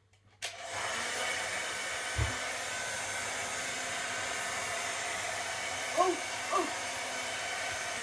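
Handheld hairdryer switched on at its full setting about half a second in, then running with a steady whooshing hiss and whine until it is switched off at the end and trails away. Two short chirps come near three-quarters through, and a single low thump comes about two seconds in.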